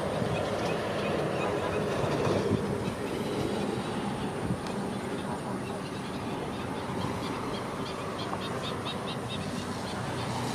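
A feeding flock of greater flamingos: a steady mass of low, honking, goose-like calls, with a run of quick high chirps in the second half.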